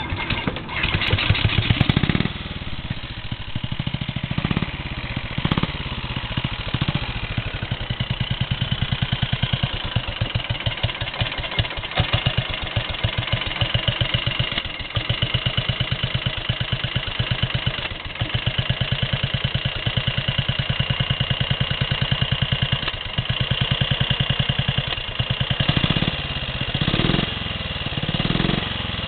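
1935 Sunbeam Model 9's 500cc overhead-valve single-cylinder engine firing up from a kick-start and revving briefly, then idling with an even, rapid beat. It is blipped up in revs a few times near the end.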